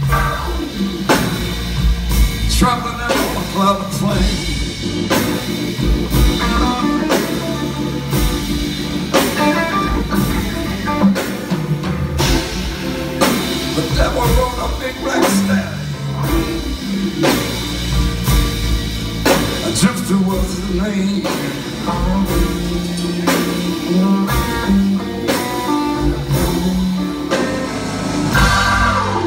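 Live blues-rock band playing an instrumental passage: electric guitar over a drum kit and percussion keeping a steady beat.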